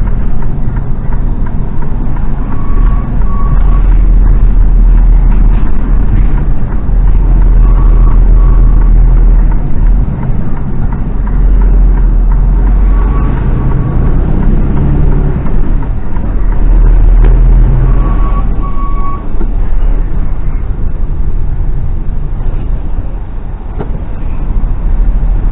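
Mercedes Actros lorry's diesel engine rumbling heard from inside the cab as it drives. A short high beep sounds about every five seconds.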